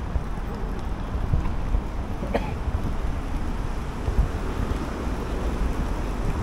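Street ambience heard while walking: a steady low rumble of city noise with wind buffeting the microphone, and one brief higher-pitched sound a little over two seconds in.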